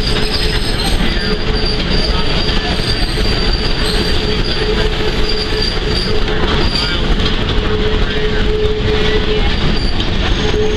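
Steel wheels of a Shay-hauled excursion train squealing as it rounds a curve, a steady high squeal over the constant rumble of the rolling cars.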